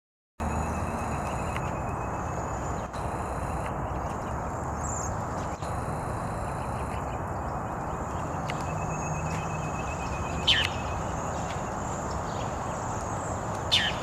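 A flock of cedar waxwings giving faint, high, thin calls over a steady background hiss. Sound starts about half a second in. Twice, once past the middle and once near the end, a louder call sweeps quickly downward in pitch.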